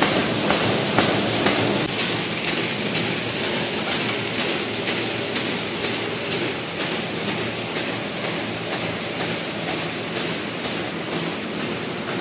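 Automatic square-bottom paper bag making machine running: a steady mechanical clatter with a regular knock about twice a second. The knocks are strongest in the first two seconds, then grow fainter.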